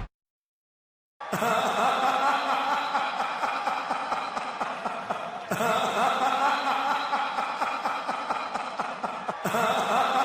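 Processed laughing voice used as an entrance sound effect, starting about a second in after a silence and starting over abruptly twice, about every four seconds, like a loop.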